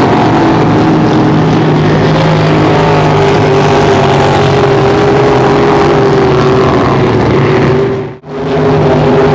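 Racing speedboat engines running hard as several boats lap the course, a loud, steady engine note, with a sudden brief drop-out about eight seconds in.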